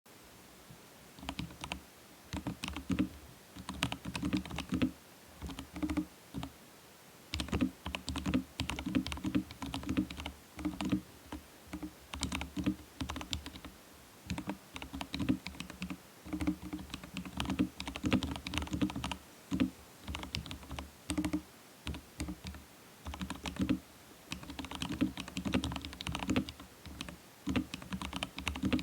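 Typing on a custom XD84 Pro mechanical keyboard with Gazzew Boba U4T tactile switches: quick runs of keystrokes in bursts, with short pauses between them.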